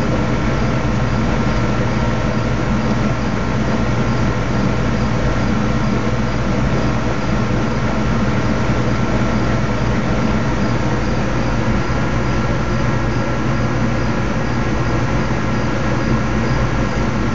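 Loud, steady mechanical drone with a constant low hum, unchanging throughout.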